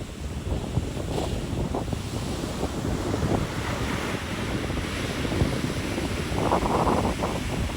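Ocean surf washing in, with wind buffeting the microphone; the wind gusts hardest a little before the end.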